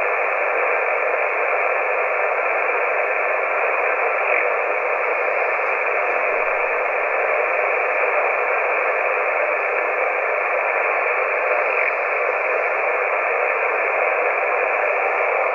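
Steady static hiss from a CB radio receiver on the 11-metre band, with no station coming through.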